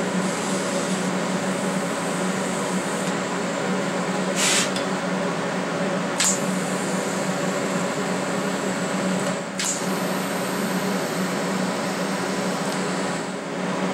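TIG welder running with a steady electrical hum while the arc is struck on and off to tack-weld a brake bracket. Three short high hisses cut in, at about four and a half, six and nine and a half seconds.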